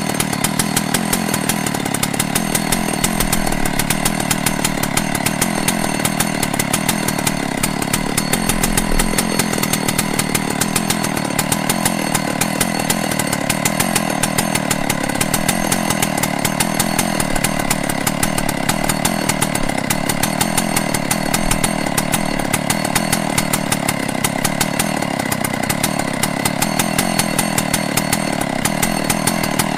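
A chainsaw running steadily, its loudness even, with no pauses or shutdown.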